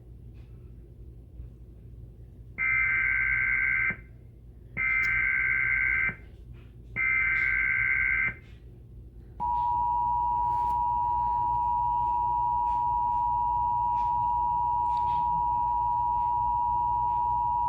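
Emergency Alert System required monthly test: three bursts of digital SAME header data, each just over a second long, then the steady two-tone EAS attention signal, which starts about nine seconds in and holds for about eight seconds.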